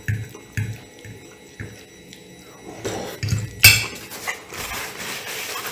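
Close-miked chewing of a mouthful of pasta, about two chews a second. Nearly four seconds in, a metal fork is laid down on a ceramic plate with a sharp clink, followed by the rustle of a paper napkin.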